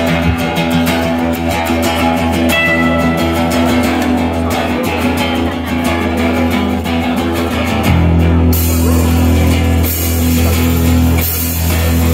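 Live rock band playing: strummed acoustic guitar and electric guitar over bass and a drum kit keeping a steady beat. About eight seconds in the band gets louder and brighter.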